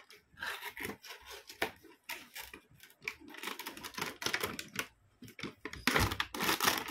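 Hands handling and opening a cardboard toy box: scattered taps, clicks and scrapes of cardboard, growing into denser, louder rustling near the end.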